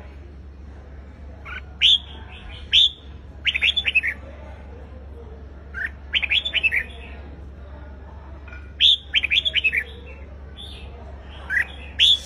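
Red-whiskered bulbul singing its competitive 'fighting' song: short phrases of quick, clear notes repeated every second or two. A steady low hum runs underneath.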